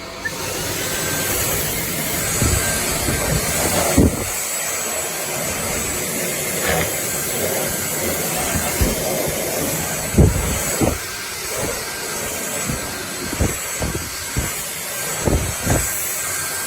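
Dreame Z20 cordless vacuum running with a steady airy hiss, with irregular low thumps and knocks throughout as it is pushed around.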